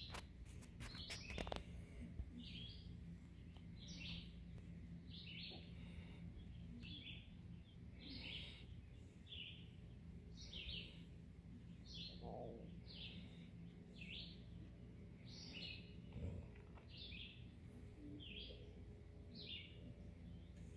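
A bird calling with a short chirp repeated over and over, about one to two a second, faint over a low steady hum.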